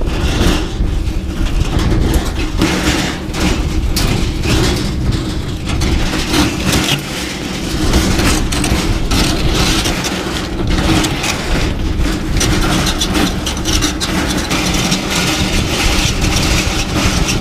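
Four-burner gas grill being pushed across lake ice, its wheels rumbling steadily and the metal body rattling and knocking.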